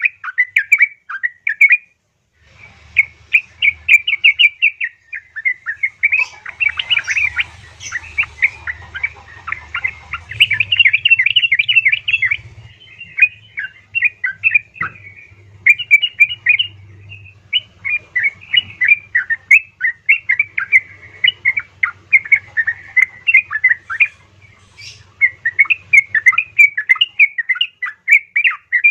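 Female yellow-vented bulbul (trucukan) calling in rapid, chattering runs of short notes, nearly unbroken, with a brief pause about two seconds in. It is a lure call that sets male bulbuls singing. A faint low hum sits underneath.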